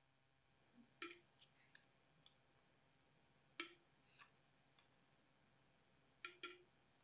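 Faint clicks and clinks of a utensil against a glass bowl as canning salt is scooped and levelled: a few light taps, the clearest about a second in, another midway, and a close pair near the end.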